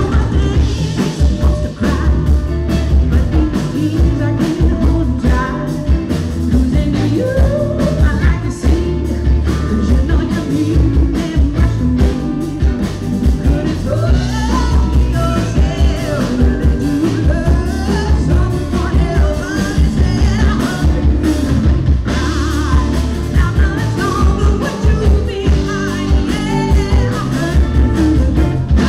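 Live rock band playing, with a woman singing lead over electric guitar and drums.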